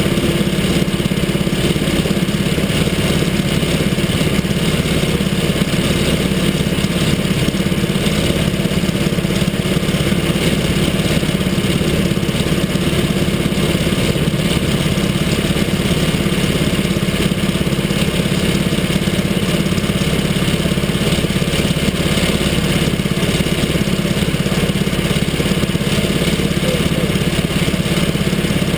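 Mini sprint kart's small engine idling steadily, close up, with no revving.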